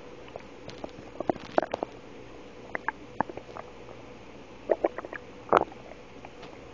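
A woman's stomach gurgling in short, irregular pops and squelches that come in small clusters, the loudest about five and a half seconds in.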